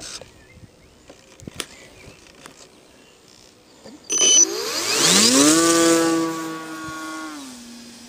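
Radio-controlled model aeroplane's motor and propeller. About four seconds in it speeds up with a rising whine, holds at a steady buzz, then drops to a lower steady pitch near the end as it is throttled back. Before that there are only faint ticks.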